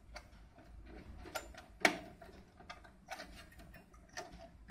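Scattered light clicks and knocks of hands handling parts and cables inside an open desktop PC's steel case. The sharpest click comes about two seconds in.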